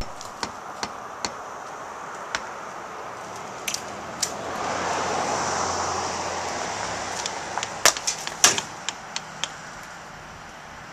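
Sharp knocks and clinks of bricks being worked loose and handled as a brick chimney is taken down by hand, with several louder ones close together about eight seconds in. A vehicle passes in the middle, its noise rising and fading.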